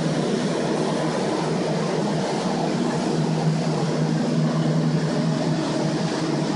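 Flood-restoration drying equipment running: snail-shaped carpet air movers and a dehumidifier blowing steadily, a constant low hum under a broad rush of air, as they dry out the stripped, water-damaged walls.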